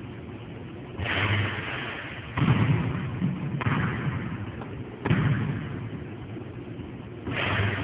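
Basketball thudding on a hard court: five heavy thuds a second or so apart, each trailing off with an echo.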